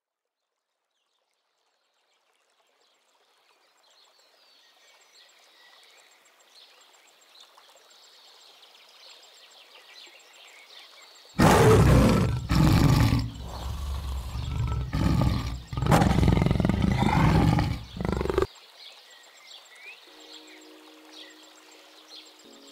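Tiger roaring and growling in several loud bursts from about halfway through, over a faint wildlife ambience that fades in during the first few seconds.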